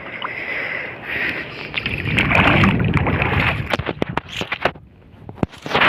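Water sloshing and splashing around a person wading in the shallows, with wind buffeting the microphone. It swells louder for a while about two seconds in and gives way to a few sharp clicks and knocks near the end.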